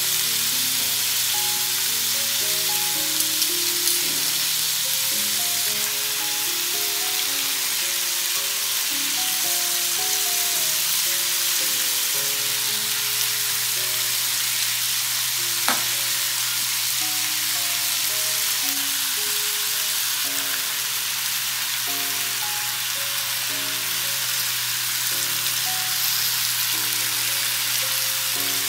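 New York strip steaks and sliced onions sizzling steadily on a Blackstone griddle, a constant high frying hiss. Soft background music plays underneath, and there is a single sharp click about sixteen seconds in.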